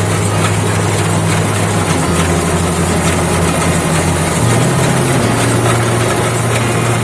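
Small combine harvester's engine and threshing machinery running steadily, a dense mechanical hum with a noisy rush on top.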